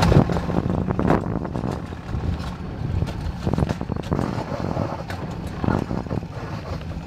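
An alpine coaster sled running down its steel rail track: a steady rumble of the wheels on the rails with frequent clicks and clatters, and wind buffeting the microphone. The sound is loudest at the start and eases off after about two seconds.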